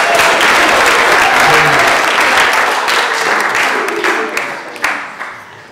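Audience applauding, a dense patter of many hands clapping with a few voices mixed in; the clapping thins out and fades away over the last two seconds.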